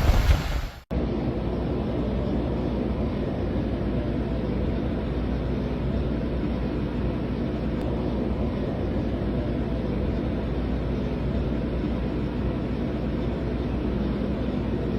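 Gusting wind on the microphone for about the first second, then after an abrupt cut a steady low drone of a running vehicle engine.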